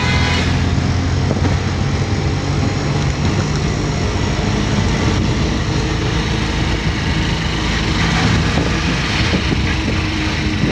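Auto-rickshaw engine running steadily while riding in traffic, with a constant low drone and road noise.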